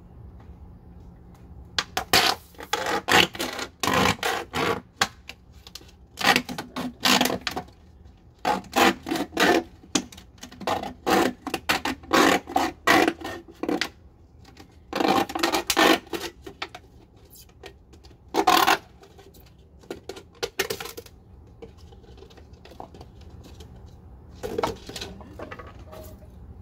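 Thin plastic drink bottle crackling and crinkling in rapid bursts as it is cut open with a knife, starting about two seconds in and going on in bouts with short pauses.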